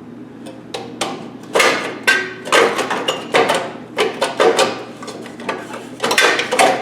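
Irregular metal clanks and rattles as the sheet-metal engine shroud of a 6 hp Tecumseh small engine is handled and fitted into place. The knocks are sparse at first, then come thick and loud from about a second and a half in, some leaving a brief ringing.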